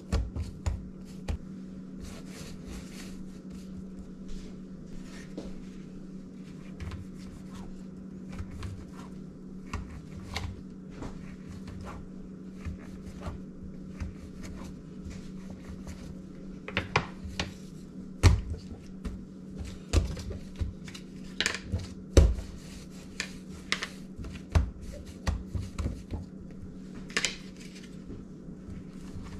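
Hands rolling a log of pandesal dough on a silicone pastry mat, then a plastic bench scraper chopping it into portions, knocking sharply against the mat over the second half. A steady low hum runs underneath.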